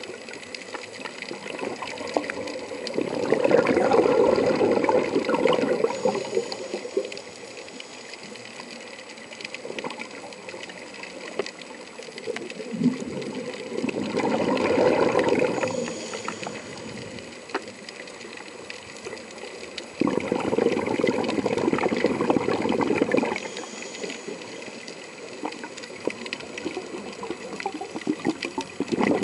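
Scuba regulator exhaust bubbles heard underwater: a diver's exhaled breath comes out as a bubbling rush in bursts of two or three seconds, about four times, with quieter pauses between them while the diver breathes in.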